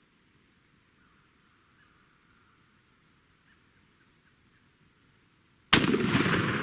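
Near silence, then near the end a single shotgun blast from a Stoeger turkey gun, a sudden loud crack that rolls on as a long echo.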